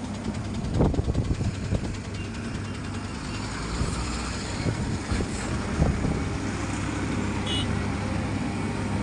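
Heavy road-paving machinery running steadily, a low diesel rumble with a few short knocks and clanks.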